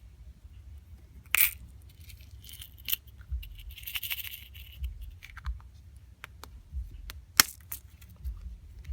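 Small gumball-machine trinkets and a cheap toy chain necklace being handled and set down: a few sharp clicks and light metallic clinks, with a brief rustle about four seconds in.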